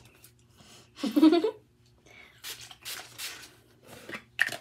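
Hands rubbing skincare product onto a face and handling a small plastic bottle, with soft rustling and a sharp click near the end. A brief wordless voice sound comes about a second in.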